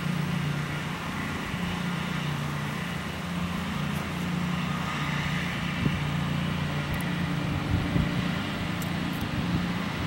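Pilatus PC-12's single turboprop engine and propeller running as the aircraft rolls out on the runway after landing: a steady droning hum with a low propeller tone that wavers slightly.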